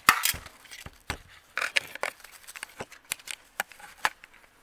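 A string of short, sharp clicks and knocks, loudest right at the start and thinning out toward the end: a flashlight and the camera being handled against a pressure washer's metal pump head.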